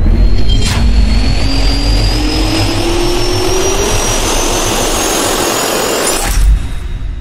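Jet-engine sound effect for a logo intro: a loud turbine roar with a heavy low rumble and a whine that slowly rises in pitch. A sharp hit lands less than a second in, another comes about six seconds in, and then the roar dies away.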